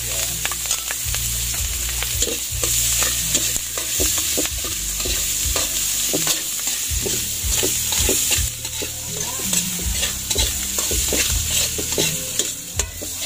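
Bell pepper sautéing in hot oil in a pan, sizzling steadily, with a spatula scraping and knocking against the pan as it is stirred.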